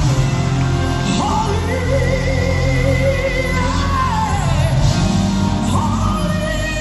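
Live gospel worship music: a vocalist sings long, sliding held lines over a band with a steady, deep bass.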